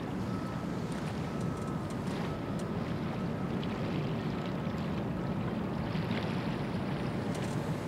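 Steady low rumble of a large cruise ship's machinery heard across the water, with a hiss over it and a faint steady whine in the first few seconds.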